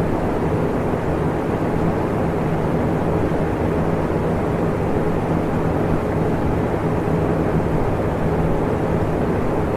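Electric fan running steadily: an even rushing noise, heaviest in the low and middle range, with a faint steady hum under it.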